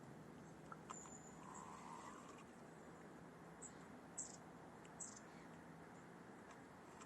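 Near silence: faint outdoor background hiss, with a few very short, faint high chirps about halfway through.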